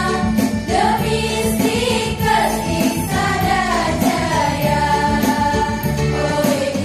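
A women's choir singing a song together, with a steady, rhythmic accompaniment underneath.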